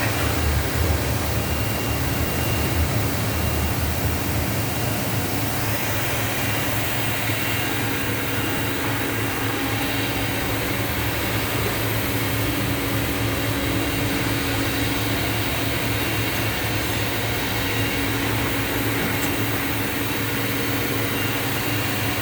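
Two-table CNC mortising machine running with a steady mechanical hum and noise, its sound shifting slightly about six seconds in.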